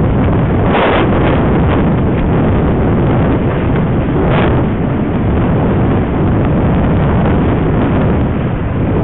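Loud, steady wind noise buffeting the microphone aboard a yacht under sail, with brief stronger gusts about a second in and again about four seconds in.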